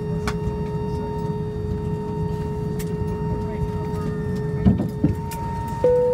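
Airbus A319 cabin at the gate: a steady hum of cabin air with a constant tone, two short knocks a little after four and a half seconds, then a single cabin chime near the end that rings and fades.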